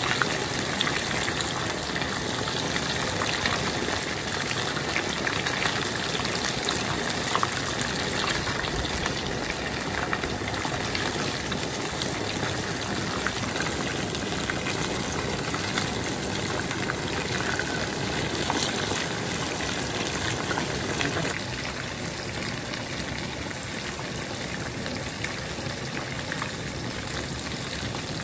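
Battered pieces of puffer fish deep-frying in hot oil in a wok: a steady sizzle of bubbling oil, easing slightly about three quarters of the way through.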